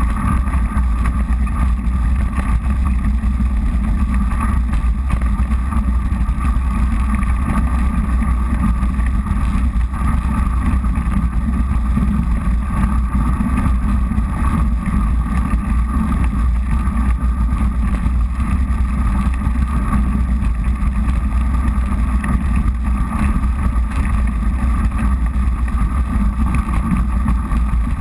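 Mountain bike tyres rolling over crunchy, slushy snow and ice, a steady loud rumble with wind on the microphone.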